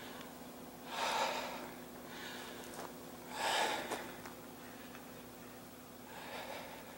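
A hiker breathing hard close to the microphone: three heavy breaths about two and a half seconds apart, over a faint steady hum.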